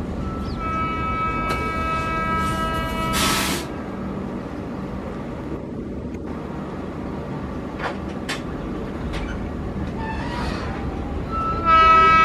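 Indian Railways electric locomotive sounding its horn in one long, steady blast that stops sharply after about three seconds, then sounds again near the end. Under it is a steady rumble of train running noise.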